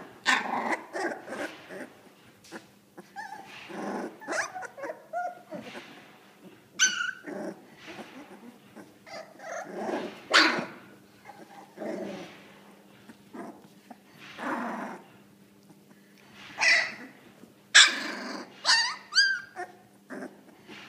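Young pit bull puppies vocalising in many short, irregular bursts as a hand roughhouses with them, with a few high, sliding cries near the end.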